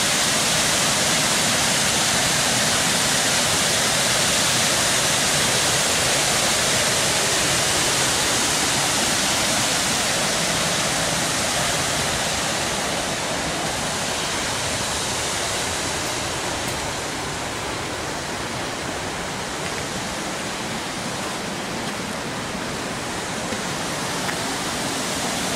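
Water pouring over a low mill-dam spillway: a steady, loud rush of falling water. It eases a little about halfway through and grows slightly again near the end.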